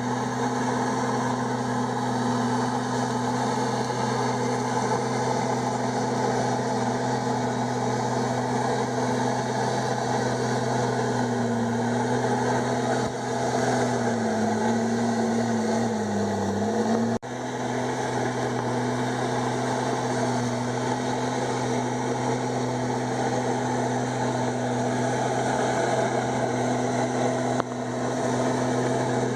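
Komatsu D51EX bulldozer's diesel engine running steadily, its pitch sagging for a few seconds about halfway through, then recovering.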